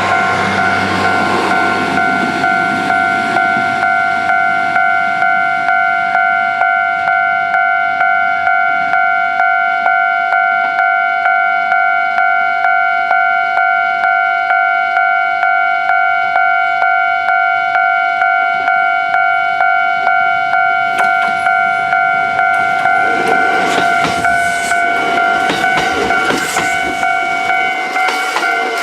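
Japanese level crossing warning bell ringing in even, rapid electronic strokes. From about 23 seconds in, a Kintetsu 23000 series Ise-Shima Liner limited express runs slowly over the crossing, its wheels clattering over the rails.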